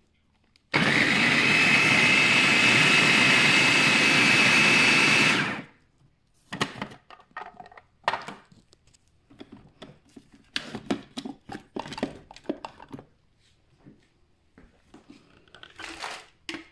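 Hamilton Beach food processor motor switched on and running for about five seconds, chopping vegetables, with a steady high whine over the noise of the blade. After it stops, scattered clicks and knocks.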